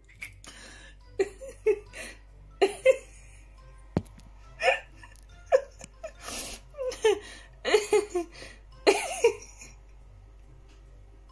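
A series of about a dozen short, squeaky, hiccup-like vocal sounds spaced irregularly over several seconds, with a single sharp click about four seconds in.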